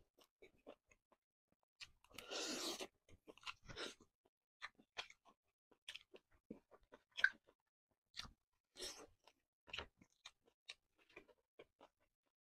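Close-miked eating sounds of a person chewing chicken: wet mouth smacks and clicks in separate bites with short quiet gaps, with a longer noisy stretch about two seconds in.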